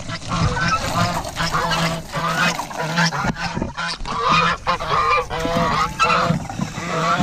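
Noisy geese honking over and over, one call after another without a break, over water from a garden hose splashing onto a plastic poultry waterer.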